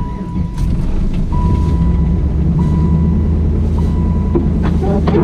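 1993 Chevrolet Camaro Z28's 5.7-litre LT1 V8 running, its low rumble getting louder about half a second in as the car moves off. A thin high tone comes and goes faintly over it.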